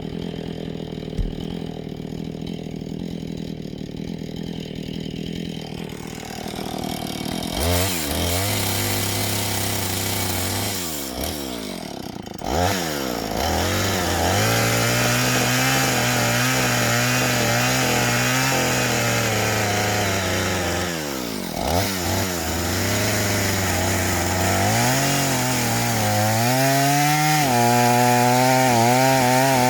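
Two-stroke chainsaw idling, then revved up about seven seconds in and run at full throttle, cutting into a freshly cut log. It eases off the throttle twice and climbs back to full revs near the end.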